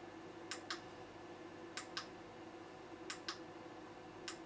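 Pairs of sharp clicks repeating evenly about every second and a quarter, over a steady low hum.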